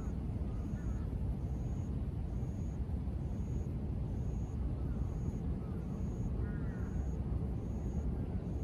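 Steady low rumble of distant city traffic, with a faint high chirp repeating about once a second and a few brief faint bird chirps.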